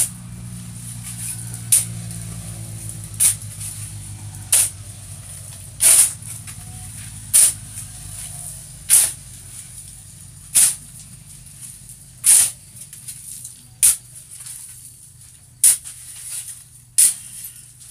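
Metal shovel blade scraping across a cement floor as a heap of wet, dark material is shovelled and turned. There are about a dozen short rasping strokes, one roughly every second and a half.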